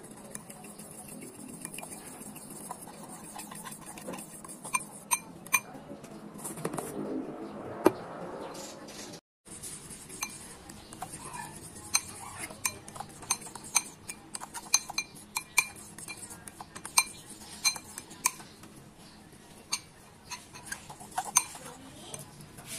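A fork stirring flour-and-egg batter in a glass bowl, clinking and scraping against the glass in quick irregular strokes, busier in the second half. The sound cuts out for a moment about nine seconds in.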